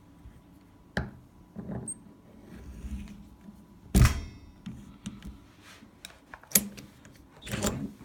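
A metal shutter lock being handled in a vise: a few separate metallic knocks and clicks. The loudest comes about halfway through and rings briefly.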